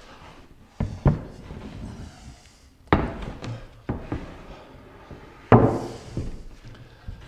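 A large particleboard sheet knocking and thudding against a wooden bench frame as it is lowered and shifted into place: about five separate thunks, the loudest about five and a half seconds in.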